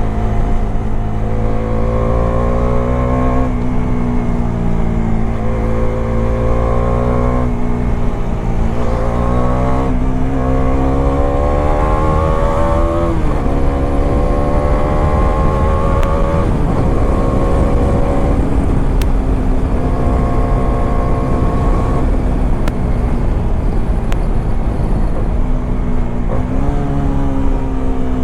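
Bajaj Dominar 400's single-cylinder engine pulling hard at highway speed. Its pitch climbs and then drops several times as the rider works the throttle and gears. Heavy wind rumble on the microphone runs underneath.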